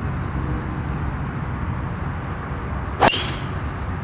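A three wood striking a golf ball off the tee: one sharp crack about three seconds in, with a short ring after it, over a steady low background rumble.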